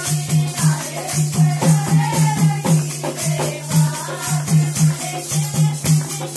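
Lively dance music with a steady beat about four times a second, a high rattling percussion, and a wavering melody line over it, with hand claps keeping time.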